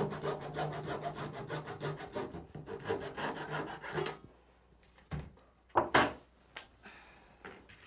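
Burrs being scraped off the freshly cut end of a white PVC drain pipe with a hand tool, in quick rasping strokes that stop about four seconds in. Two sharp knocks follow about a second apart, the second the loudest.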